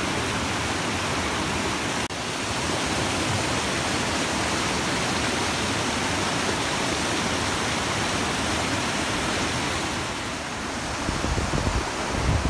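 Shallow river rapids rushing steadily over rocks and boulders, a constant loud roar of white water. Near the end, irregular low thumps and rumbles come in over the water.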